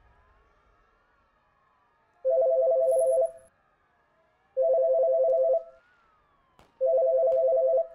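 Telephone ringing three times, each ring about a second long with a pause between, made of two pulsing tones: a call ringing out unanswered.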